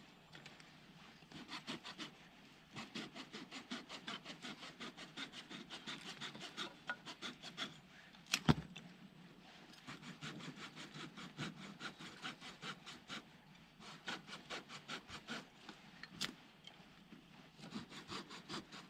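Hand saw cutting wood in quick, steady back-and-forth strokes, several a second, in runs with short pauses between them. A couple of sharp knocks stand out, the loudest about halfway through.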